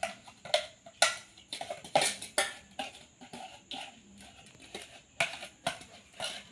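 A spoon stirring palm sugar into freshly squeezed ginger juice in a bowl, making a series of irregular clinks and scrapes, up to about two a second.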